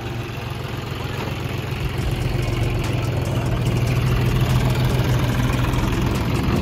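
Vehicle engine running steadily, getting louder over the first two seconds and then holding.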